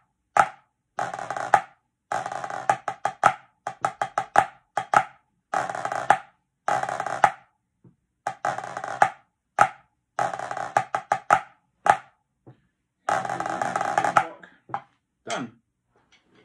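Pipe band snare drum played with sticks: sharp single strokes and sustained rolls in a march rhythm, the closing part of a simple-time march score. The playing stops about 14 seconds in.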